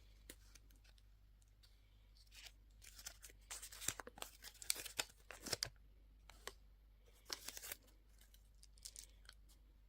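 Candy packaging being torn open and crinkled by hand in irregular crackling bursts, busiest from about three and a half to six seconds in, with a few shorter bursts later.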